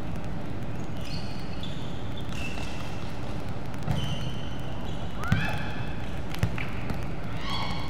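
Volleyball being played on a wooden indoor court: the ball is struck about three times in the second half, over short squeaks of sneakers on the floor and players' voices.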